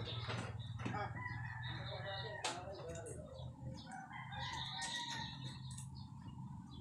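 A rooster crowing, two long drawn-out calls, over a low steady hum.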